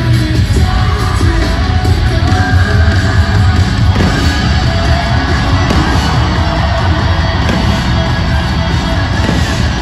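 Loud live rock music through an arena sound system, with singing, heard from the stands with the hall's echo.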